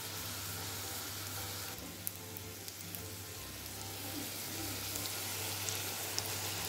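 Breadcrumb-coated tuna cutlets shallow-frying in hot oil in a pan: a steady sizzle with a few faint pops, over a low steady hum.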